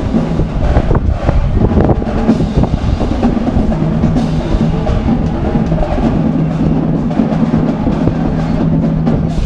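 Parade drumming and band music, with a low note held through much of it.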